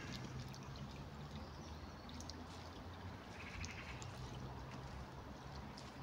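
Shallow creek water trickling steadily, with a few faint clicks.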